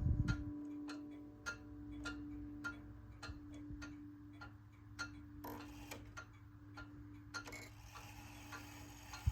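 1933 Junghans/HAC chiming wall clock ticking steadily, a little under two ticks a second, while the last note of its steel chime rods dies away. A low thud comes right at the start.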